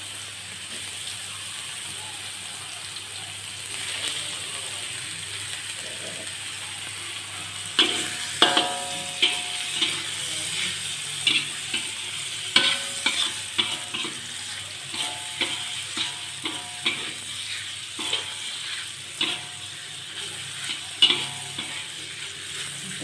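Sliced meatballs sizzling steadily in a little oil in a metal wok, being fried until slightly dry. From about eight seconds in, a metal spatula scrapes and clinks against the wok every second or so as they are stirred.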